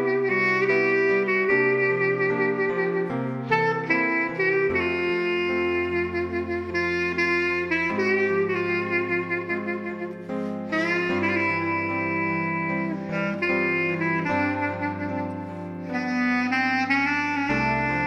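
Background instrumental music: a slow melody in long held notes over low bass notes that change every second or two.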